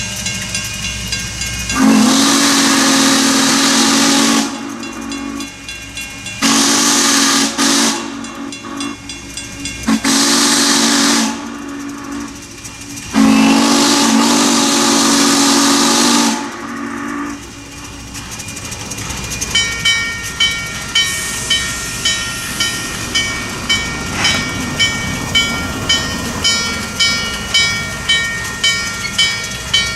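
Norfolk & Western 611's steam whistle sounding four blasts, long, short, short, long: the grade-crossing signal. Near the end comes a steady, regular ringing, about one stroke a second.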